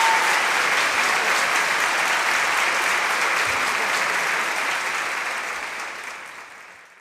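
Audience applauding, fading out over the last two seconds.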